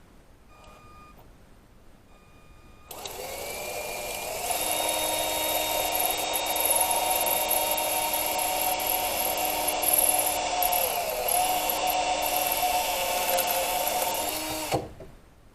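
Electric hand drill running for about twelve seconds while drilling out a broken bolt with a depth-marked bit. Its whine rises in pitch as it spins up, dips briefly about two-thirds of the way through, then cuts off suddenly near the end.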